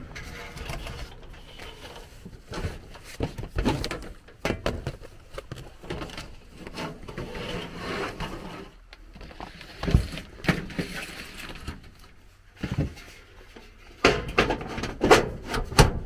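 Irregular knocks, clicks and scrapes of hands handling a furnace's 1-inch air filter at its sheet-metal filter slot, with sharper knocks about ten seconds in and a quick run of them near the end.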